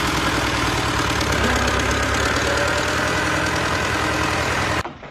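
An engine running steadily, cutting off abruptly near the end.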